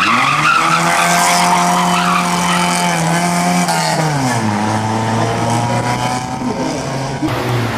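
Opel Manta rally car accelerating hard out of a turn, its engine note rising and then held high, with tyre squeal as it slides near the start. About four seconds in the engine pitch drops sharply and then runs steady at the lower note.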